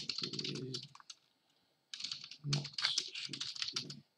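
Typing on a computer keyboard: quick runs of keystrokes, with a pause of about a second partway through before the typing resumes.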